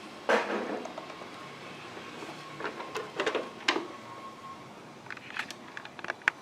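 Handling noises: a thump, then scattered sharp clicks, knocks and rustles.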